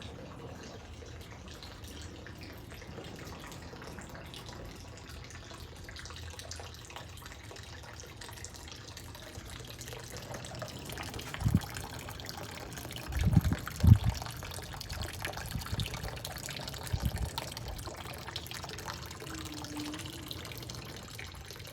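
Water running and trickling steadily in a garden water feature. About halfway through come a handful of short, dull low thumps, two close together being the loudest.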